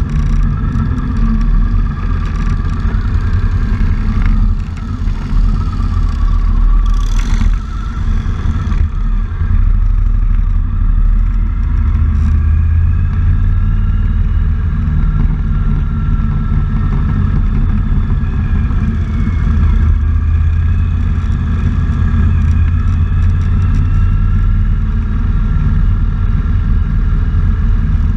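Motorcycle engines running at low road speed while riding, a steady low rumble, with a brief hiss about seven seconds in.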